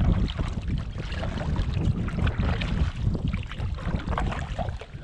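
Wind buffeting the microphone in uneven gusts, over light water noise from a kayak.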